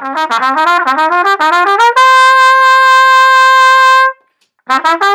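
Solo trumpet playing a quick run of separately tongued notes climbing upward, then holding one long high note for about two seconds. After a short break, a few more quick notes come near the end.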